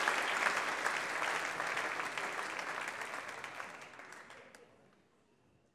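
Audience applauding, a dense patter of many hands clapping. It dies away over the last couple of seconds.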